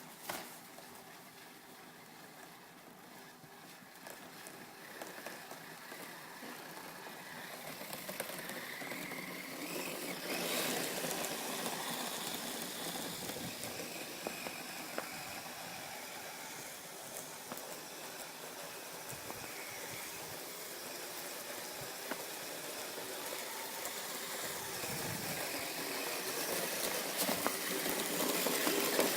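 Radio-controlled Kyosho Blizzard SR tracked snow vehicle driving over snow, its electric motor whining under the noise of the tracks. It gets louder about ten seconds in and again near the end.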